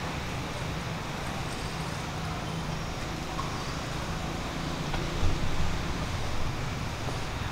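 Steady low rumble of distant road traffic, with a brief louder bump about five seconds in.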